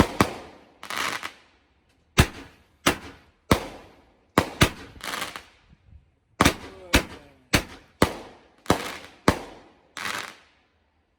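Fireworks and firecrackers going off one after another: more than a dozen sharp bangs at uneven intervals, several trailed by a brief crackling hiss.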